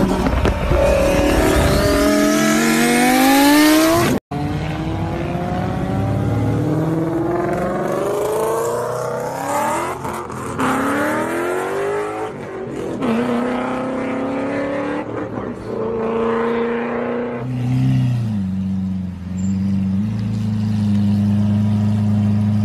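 Toy RC rock-crawler's electric motor and gearbox whining up close, the pitch sweeping up and down again and again as the car speeds up and slows, then holding steadier near the end. The sound cuts out briefly about four seconds in.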